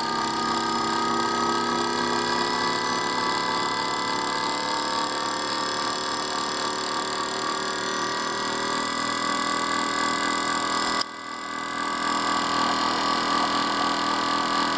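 Brushless outrunner motor spinning two stacked magnet rotors inside a copper-tubing coil, a steady whine made of several tones that creep slightly up in pitch over the first ten seconds. The level drops sharply about eleven seconds in and then comes back.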